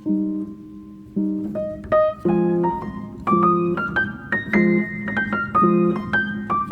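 Background music played on piano or electric piano: chords with a melody climbing through quick notes.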